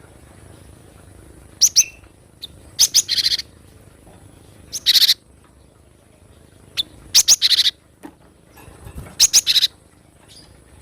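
Cinereous tit (gelatik batu) calling: about five short bursts of quick, high, repeated notes a couple of seconds apart.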